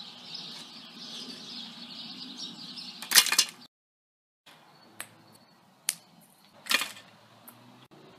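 LEGO rubber-band catapult firing a ping-pong ball: a sharp clack about three seconds in as the arm is released and snaps forward. Later come a couple of light clicks and a second sharp clack a little over halfway through.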